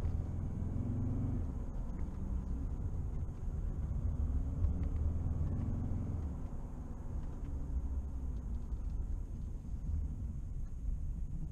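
Mercedes C270 CDI's five-cylinder turbodiesel engine running under load with road noise, heard from inside the cabin, the revs rising and falling as the car is driven hard. The loudness eases off towards the end.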